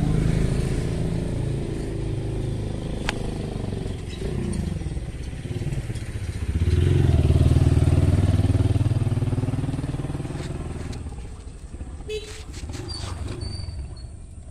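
A motor vehicle's engine running nearby, its pitch rising and falling, growing loudest about seven seconds in and then fading away. A few faint clicks come near the end.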